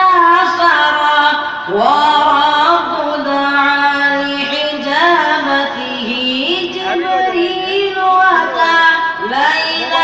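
A high voice chanting a religious melody in long, ornamented lines, the notes held and bending up and down.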